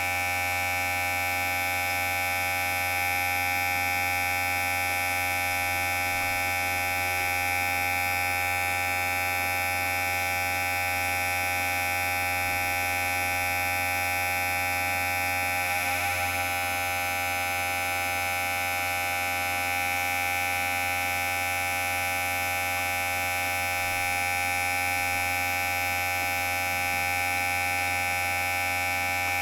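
Electric hair clipper running with a steady buzzing hum and no change in speed.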